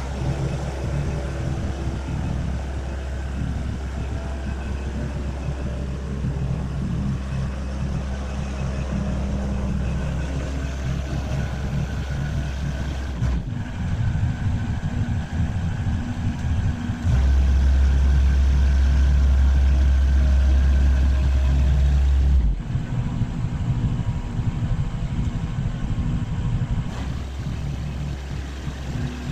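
Engine of a Skyjack 4x4 telescopic boom lift running steadily, changing pitch now and then and running louder for about five seconds past the middle.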